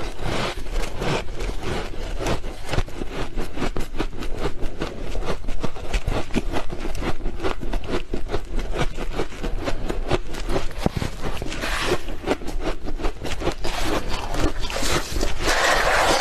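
Close-up chewing of freezer frost: rapid, dense crunches, several a second, with a couple of brief hissy, gritty stretches.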